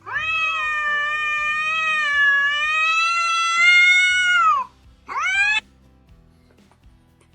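A cat meowing: one long call of about four and a half seconds, then a short rising meow.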